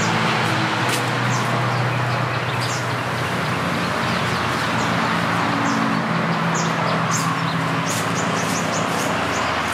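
Steady outdoor noise with a low hum underneath, and short high chirps from small birds that come more often near the end.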